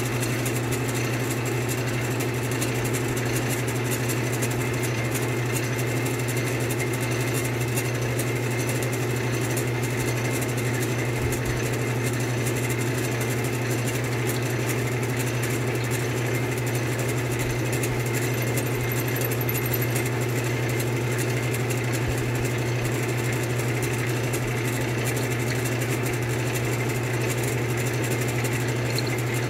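Wood lathe running steadily with a long drill bit spinning in a headstock drill chuck, boring lengthwise into a turned wooden chair spindle fed onto it by hand. A constant low motor hum under an even whirr, with no change in speed.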